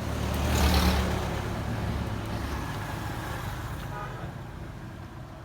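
A motor vehicle going past: a low engine rumble that swells to its loudest about a second in and then slowly fades away.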